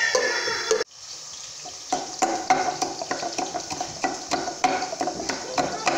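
Onions frying in oil in an aluminium pot, stirred with a metal spoon, cut off suddenly under a second in. Then, from about two seconds in, a pestle pounding in a clay mortar: sharp knocks about three times a second.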